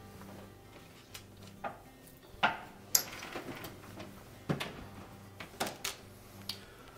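A few light clicks and knocks from an electric range being handled as its oven door is shut, with the sharpest click about three seconds in.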